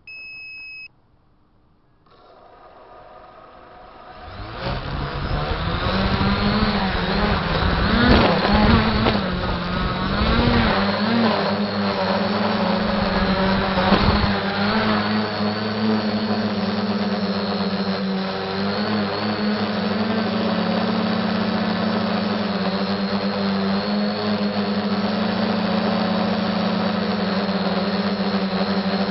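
A short electronic beep, then the SK450 quadcopter's four electric motors and propellers spin up about 2 seconds in. The sound rises steeply to takeoff throttle by about 5 seconds, wavers in pitch as the craft lifts off and steadies, and then settles into a steady, loud buzzing whine in flight.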